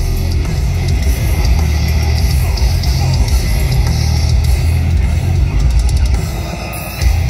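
Heavy metal band playing live: drums and distorted electric guitars, loud and heavy in the bass. The music dips for a moment and comes back in full just before the end.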